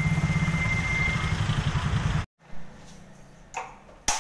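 Vehicle engine running with a steady low pulse while riding in slow traffic, with a thin high ringing tone that fades out about a second and a half in. It cuts off suddenly, followed by quiet room sound and a couple of knocks near the end, the last one sharp, as a door frame is being worked on.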